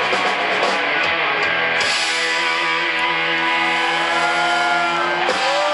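Live rock band with distorted electric guitars ending a song: dense playing for about two seconds, then a final chord held and ringing until it cuts off near the end, where crowd whoops and cheers break in.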